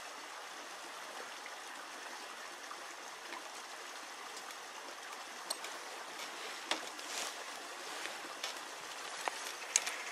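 Steady rushing of a nearby creek, with a few faint crackles and snaps scattered through, the sharpest about two-thirds of the way in and near the end.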